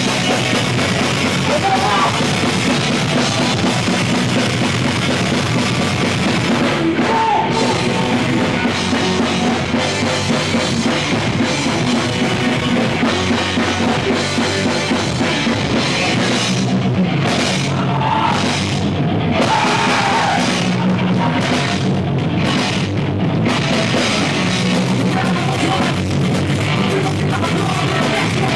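Punk rock band playing live: electric guitar, bass and drum kit, loud and dense throughout, with a run of short stop-start breaks in the second half.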